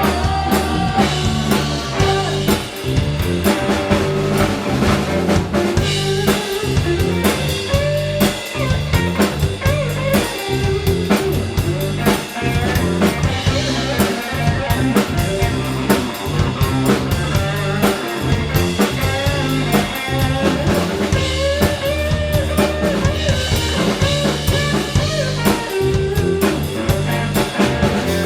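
A band playing an instrumental passage with no singing: a drum kit with snare and bass drum keeps a steady, busy beat under bass and guitar.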